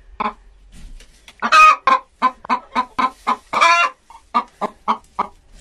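A hen clucking in quick, short repeated calls, about three a second, with two longer drawn-out calls about one and a half and three and a half seconds in.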